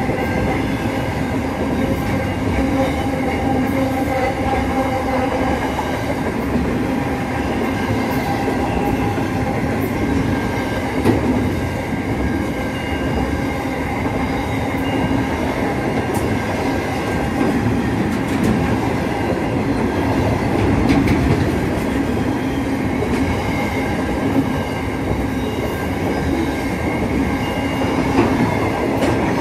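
Intermodal freight train's container wagons rolling past close by: a steady rumble of steel wheels on the rails, with thin high ringing tones over it and scattered clicks.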